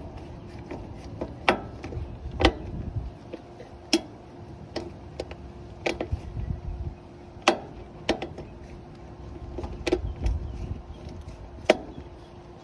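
Hand tools and metal parts clicking and clinking as someone works on a portable generator: sharp, irregular clicks every second or two, with a faint steady hum underneath.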